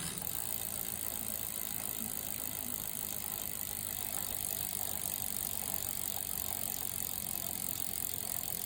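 Wheel of a 20-inch-wheeled road bike turning with a steady noise: the abnormal wheel noise being investigated, with the hub and its bearings in question.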